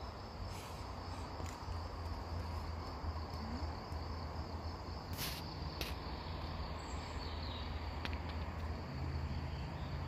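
Insects in a summer meadow chirping steadily in a high, continuous buzz over a low rumble. Two short clicks come about five and six seconds in.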